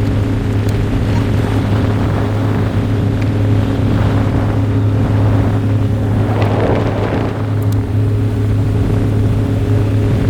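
Motorboat engine running steadily at high speed, a constant droning hum, with wind and water rushing past and wind buffeting the microphone.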